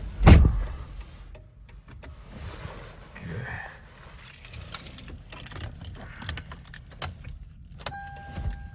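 A heavy thump just after the start, then car keys jangling and scattered light clicks. Near the end a steady electronic warning chime from the vehicle starts, breaks off briefly and resumes.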